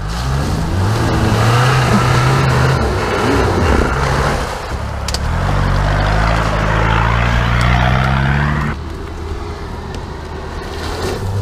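Off-road SUV engine revving up and down as the vehicle churns through deep mud and passes close by. About nine seconds in, the sound drops suddenly to a quieter engine further off.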